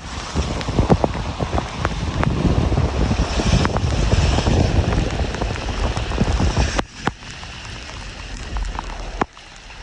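Heavy rain with wind rumbling on the microphone and raindrops striking it as sharp taps. About seven seconds in, the rumble cuts off abruptly, leaving fainter rain and scattered drops.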